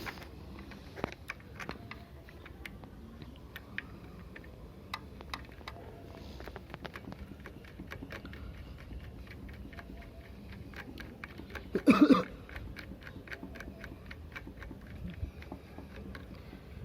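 Irregular small clicks and taps of a plastic phone mount being handled and fitted to a motorcycle, with one brief, much louder sound about twelve seconds in.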